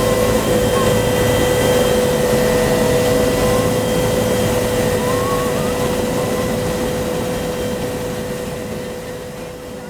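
Huey helicopter's turbine engine running: a steady high whine over a loud rushing noise, fading away over the last few seconds.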